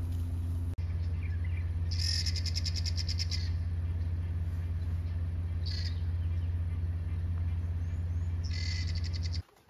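A vehicle engine idling steadily underneath, with a bird giving a rapid rattling call three times: about two seconds in, near six seconds, and near the end. Both cut off suddenly just before the end.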